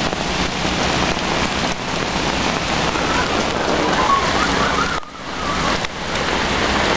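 Heavy rain pouring steadily onto a flooded street, dipping briefly about five seconds in.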